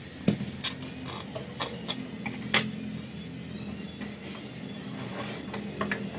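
Scattered clicks and light knocks from a small circuit board and its wires being handled and turned over, with a steady low hum underneath.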